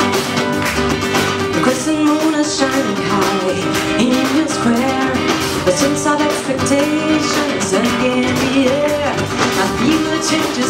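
Live band music: an acoustic guitar strummed with a drum kit, and a melodic lead line over them.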